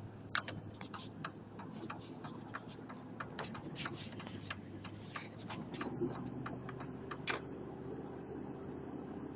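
Irregular, quick clicking rattle inside a 2003 Chevy Tahoe as it drives, over the steady hum of the vehicle, whose tone shifts about six seconds in. The owner hears this rattle on the first half mile of each drive before it goes away.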